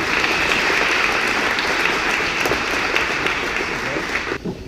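Audience applauding, a steady dense clapping from many hands that cuts off suddenly near the end.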